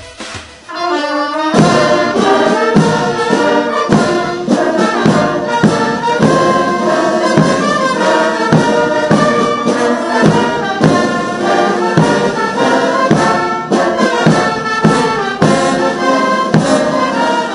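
Military brass band playing a march: trumpets, saxophones and sousaphone over a bass drum keeping a steady beat, coming in loudly about a second and a half in.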